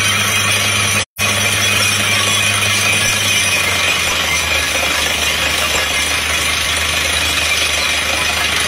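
Truck-mounted DTH water well drilling rig running under load: a steady engine drone under a loud hiss and rattle of compressed air flushing cuttings and dust out of the borehole as the down-the-hole hammer drills. The sound cuts out for an instant about a second in.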